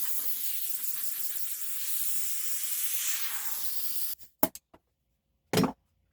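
Sandpaper rasping steadily over hardened Bondo body filler on a curb-rashed alloy wheel, stopping abruptly about four seconds in; two sharp knocks follow.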